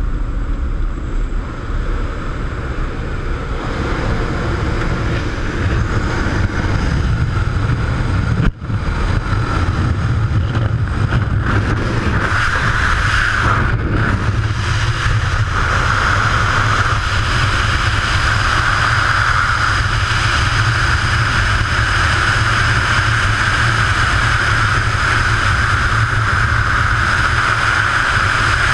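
Loud, steady rush of wind buffeting a helmet-mounted camera. It starts at the open door of a jump plane and continues through skydiving freefall, where it settles into an even roar. There is a brief dropout about eight seconds in.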